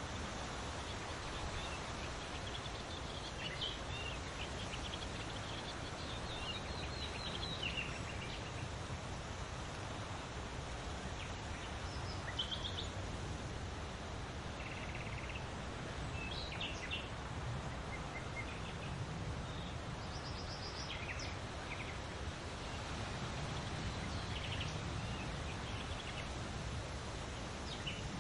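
Outdoor ambience: scattered short bird chirps and quick trills over a steady background hiss.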